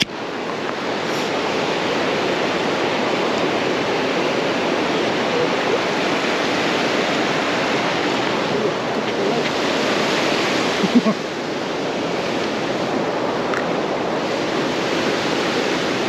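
Waterfall rushing steadily, with one brief louder sound about eleven seconds in.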